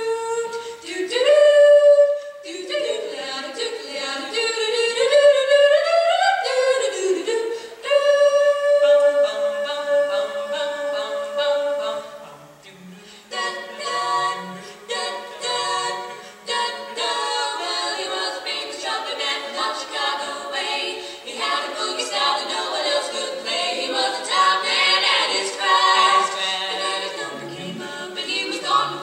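Women's barbershop quartet singing a cappella in close four-part harmony. The singing dips briefly about twelve seconds in, then comes back with full chords.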